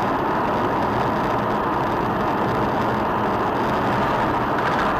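Steady vehicle driving noise: an even hum of engine and road noise, with no changes or impacts.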